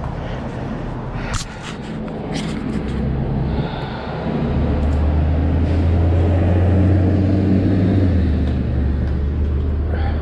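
Low steady rumble of passing road traffic, swelling for a few seconds midway, with a few sharp clicks and knocks in the first three seconds as the bicycle is handled.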